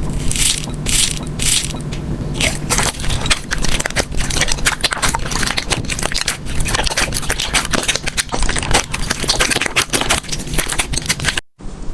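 Slime being pressed and squeezed by hand, with dense crackling and crunching, a few fuller squishes in the first couple of seconds; it cuts out briefly near the end.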